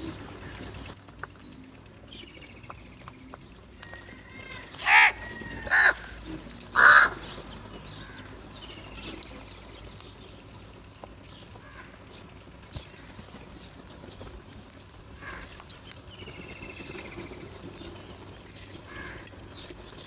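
House crows cawing: three loud caws in quick succession about five to seven seconds in, with fainter calls now and then.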